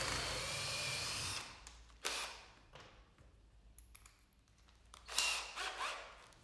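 Makita cordless drill running at speed, boring clearance holes through a pine board, and stopping about a second and a half in. A sharp knock follows about two seconds in, and a shorter burst of mechanical noise comes about five seconds in.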